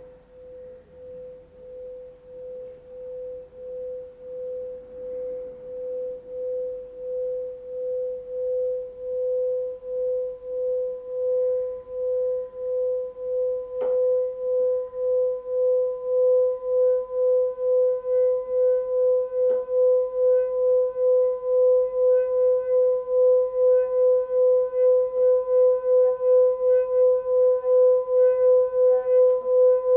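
A singing bowl holding one steady, pure tone with a pulsing wobble, swelling from faint to loud. A higher overtone joins about a third of the way in, and the wobble quickens as it grows. Two faint clicks come near the middle.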